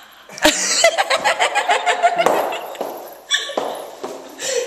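A woman laughing up close: a rapid run of short ha-ha pulses, about five a second, with another higher burst of laughter a little past three seconds in. A sharp knock about half a second in.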